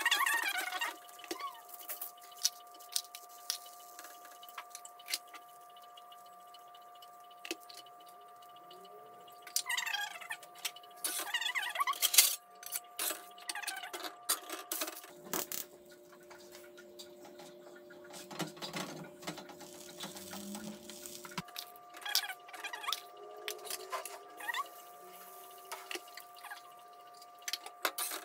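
A spoon and a metal spatula clicking and scraping irregularly on a metal griddle as crema is spread over sopes and they are lifted off, over a faint steady tone.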